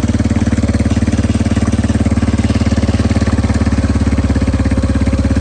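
Small engine, likely the four-wheeler's, idling steadily with a rapid, even pulse.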